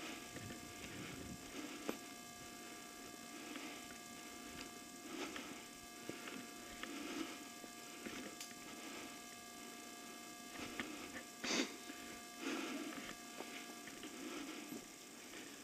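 Faint steady electrical hum with soft rustling noises recurring every second or so, a few light clicks, and one sharper snap about eleven and a half seconds in.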